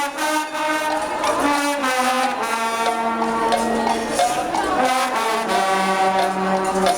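Marching brass band playing a tune, with trombones and trumpets holding long notes over a low bass line.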